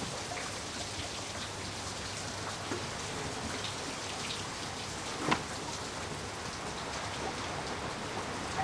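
Steady rain pattering on the barn roof, with a single sharp knock about five seconds in.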